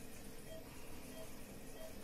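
Steady machine noise billed as the sound of a medical ventilator (respirator), with a faint short tone repeating about every two-thirds of a second.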